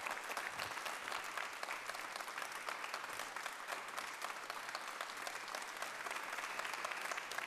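An audience applauding, many hands clapping together at a steady level, easing off near the end.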